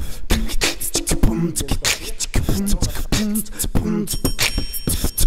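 Background music built on a fast beatbox-style percussion beat, with short pitched vocal notes over it.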